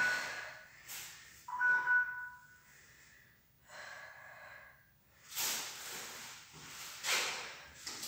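An electronic timer beeps, two steady tones at once, at the start and again for about a second, a second and a half in. From about five seconds in comes the heavy breathing of someone winded from sit-ups, a hard breath about every second and a half, with rustling as she gets up from the mat.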